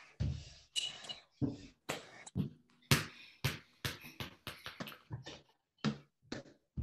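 Soccer ball being juggled on the feet at home: a run of short thuds and taps, unevenly spaced about two a second. Between touches the sound drops to near silence, as video-call audio does.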